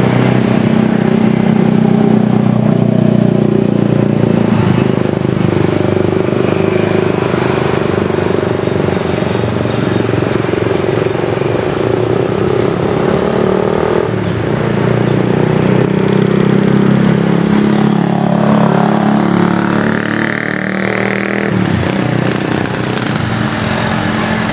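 Loud, steady engine drone, with a tone that rises in pitch about three-quarters of the way through.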